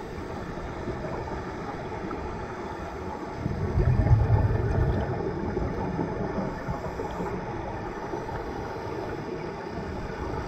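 Steady underwater noise heard through a camera housing, with a louder, low rush of scuba regulator exhaust bubbles starting about three and a half seconds in and fading over the next two seconds.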